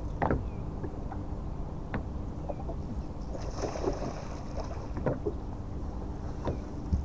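Small waves lapping and slapping against a boat's hull, with a few sharper slaps, over a steady low wind rumble on the microphone.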